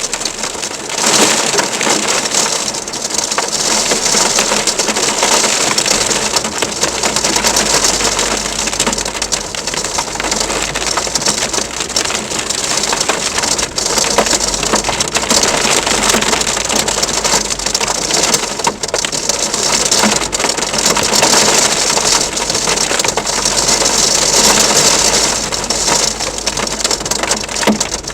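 Heavy rain mixed with hail pelting down, a dense, continuous crackling clatter of countless small impacts. A low rumble joins about six seconds in and carries on under it.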